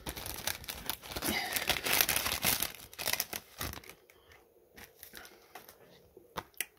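Card packaging being handled and torn open: a dense crinkling and tearing rustle for about four seconds, then quieter, with a few light clicks and rustles as a card is drawn out.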